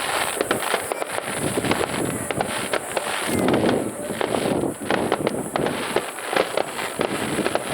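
Starmine fireworks barrage: many aerial shells bursting in rapid, irregular succession with crackling, in a dense cluster a little past the middle.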